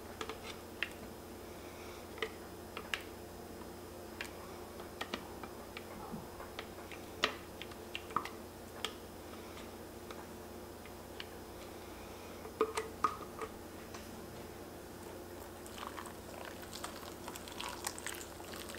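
Thick puréed sauce being scraped from a blender jar with a spatula and plopping onto cooked pasta in a pot: scattered soft wet squelches and small clicks, busier near the end, over a faint steady hum.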